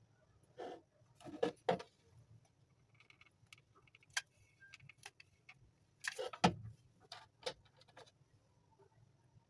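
Hands handling a hot glue gun and a small wooden-and-metal part on a table, making a scattered series of clicks and knocks. The loudest clusters come about one and a half seconds in and again about six seconds in.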